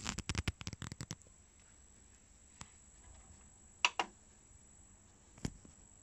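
Small plastic clicks and rattles from the player and its controls being handled: a quick run of clicks in the first second, then a few single sharp clicks, the loudest a close pair about four seconds in.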